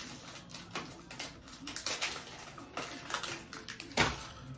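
Small crackles and clicks of a Reese's Peanut Butter Cup being unwrapped and eaten, with one louder knock about four seconds in.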